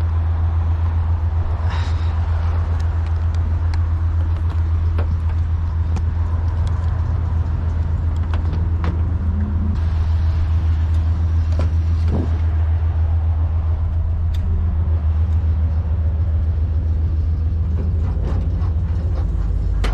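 Tow truck's engine idling with a steady low drone, with a few light clicks and knocks over it.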